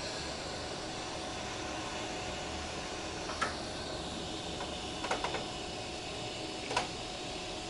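Steady outdoor background hiss with no thunder, broken by a few brief sharp chirp-like sounds: one about three and a half seconds in, a quick cluster about five seconds in, and one near seven seconds.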